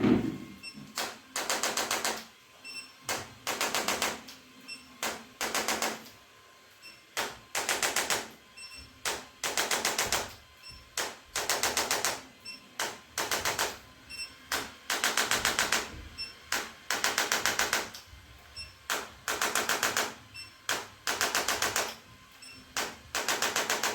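A handheld percussive device giving rapid-fire mechanical taps in short bursts of about half a second, one burst after another roughly once a second.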